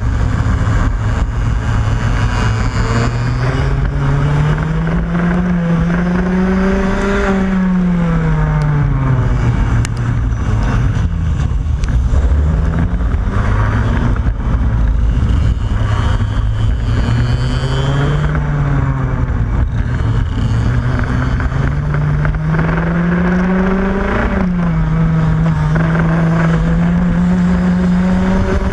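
Racing kart engine heard onboard at race pace. The revs climb steadily along the straights and fall sharply when the kart slows for corners, most clearly about 8 and 24 seconds in, over steady rumble and wind noise.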